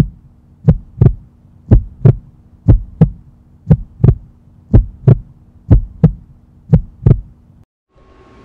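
Heartbeat sound effect: a double thump (lub-dub) about once a second over a low steady hum. It cuts off suddenly near the end.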